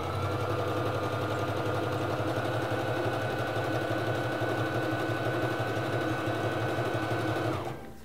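Singer Fashion Mate 3333 sewing machine running at a steady speed, stitching a narrow zigzag. Its motor whine holds one pitch, then cuts off sharply near the end as the machine stops.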